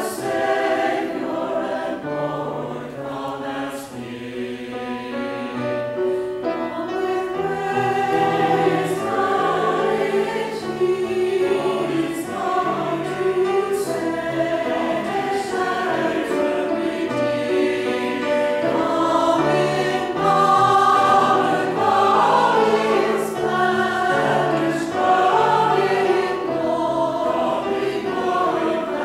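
Mixed church choir, men's and women's voices together, singing a piece of sustained, changing chords.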